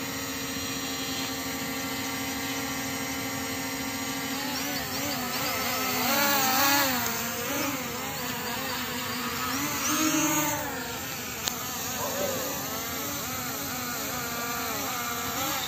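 P18 Pro quadcopter's brushless motors buzzing, first at a steady pitch as it hovers, then wavering up and down in pitch from about four seconds in as it is manoeuvred. The buzz grows louder around six to seven seconds and again at ten.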